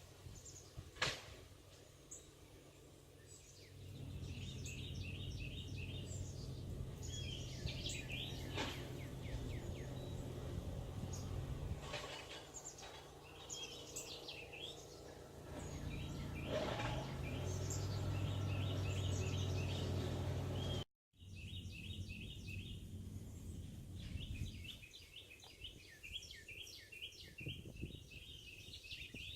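Songbirds chirping in quick runs of short, repeated notes. A low steady rumble comes in about four seconds in and fades a few seconds before the end, with a few knocks along the way, and the audio cuts out for an instant about two-thirds through.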